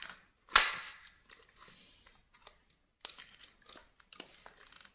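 A single sharp snap of a molded-case earth-leakage circuit breaker's lever being switched, about half a second in, followed by smaller clicks and rustling as the breakers and test wires are handled.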